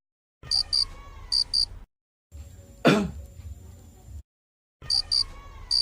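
Cricket-chirp sound effect: pairs of short, high chirps, the same sequence heard twice, the comic 'krik krik' used for an awkward silence. One brief throat-clearing sound comes about three seconds in.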